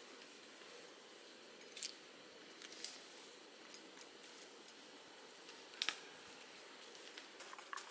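Faint handling of a small camp stove: a few short, sharp clicks, the clearest about two seconds and six seconds in, over a low steady hiss.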